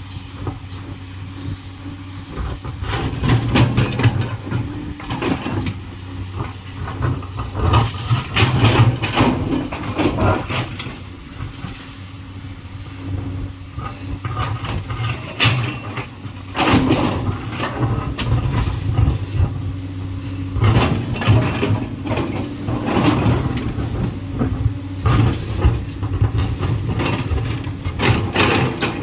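Komatsu PC210LC hydraulic excavator's diesel engine running steadily under work, with frequent clanks and knocks through the whole stretch.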